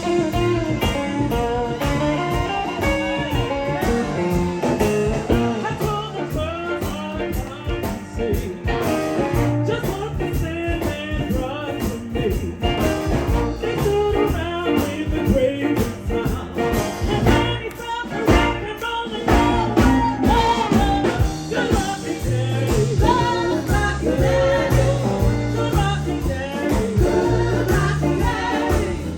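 Live blues band music with singing and electric guitar over a walking bass line and drums.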